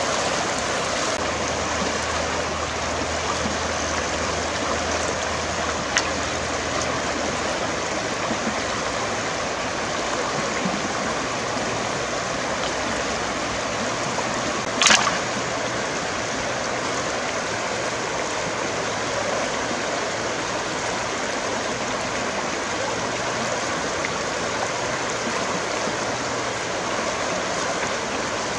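Shallow river water rushing steadily over rocks and riffles. A sharp knock about halfway through, and a fainter click earlier.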